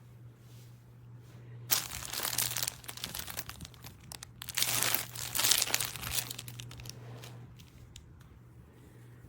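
Plastic packaging crinkling and crumpling as it is handled, in two bursts of a couple of seconds each, the first starting about two seconds in and the second about halfway through.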